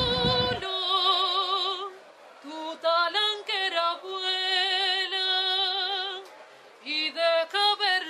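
Unaccompanied female voice singing in a lyric, operatic style: long held notes with wide vibrato, in several phrases with short breaths between them. A low rumble of noise cuts off about half a second in.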